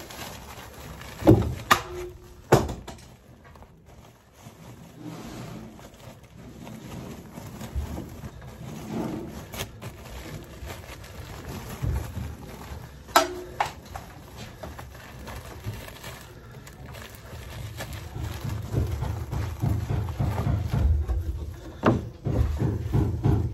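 Fiberglass batt insulation and a foil-jacketed duct being handled: soft rustling and crinkling as the insulation is packed around the duct boot, with a few sharp knocks in the first few seconds and one about halfway. From about three-quarters of the way through, a rapid rubbing grows louder.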